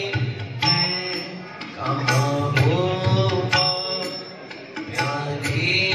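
Live devotional bhajan: a voice singing long, bending phrases over hand-drum accompaniment.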